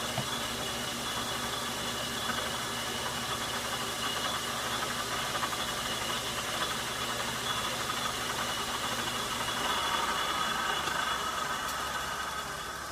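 Logan metal lathe running under a turning cut on the outside diameter of a spindle guard nut: a steady machine whir with the hiss of the tool cutting. It starts to fade right at the end.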